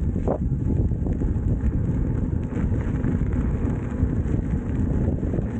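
Wind buffeting the microphone of a rider moving along a trail on an electric unicycle: a steady low rumbling noise with no clear tones.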